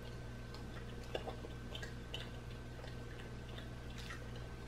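Faint, irregular mouth clicks and smacks of people chewing pizza, with one slightly louder click about a second in, over a low steady hum.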